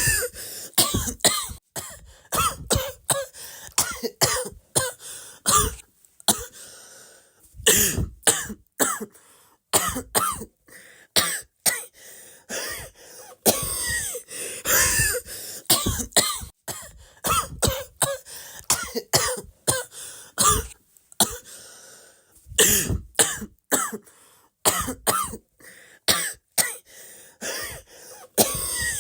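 Repeated coughing in short fits of several coughs each, with brief pauses between the fits.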